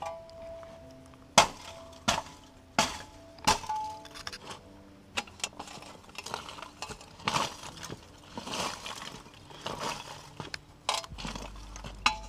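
Lumps of charcoal clinking and crunching as they are shifted at a charcoal kiln: a run of sharp, glassy knocks, the loudest four coming about two-thirds of a second apart in the first few seconds, with smaller clinks throughout.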